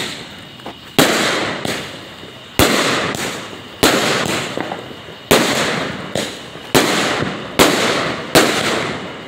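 Consumer aerial fireworks firing close by in a loud series: about seven sharp bangs roughly a second or so apart, each trailing off over about a second before the next.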